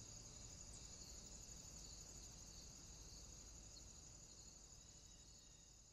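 Faint, steady, high-pitched insect chorus like crickets, slowly fading.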